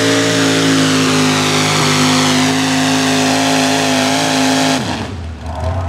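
Pulling vehicle's engine running hard at a loud, steady high pitch, dipping slightly about two seconds in. It stops abruptly near the end, leaving a lower engine rumble.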